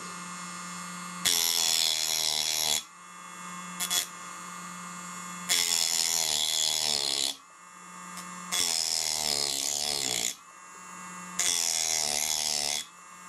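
Small hand-held rotary tool running, bearing down four times for about a second and a half each as it cuts gaps in the copper cladding of model-railway sleepers. The motor's pitch sags under each cut. The cuts electrically separate the rails.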